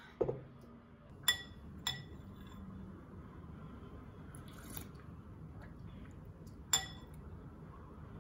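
Dishes clinking: a dull knock just after the start, then sharp ringing clinks at about one and two seconds in and again near the end, over a faint low hum.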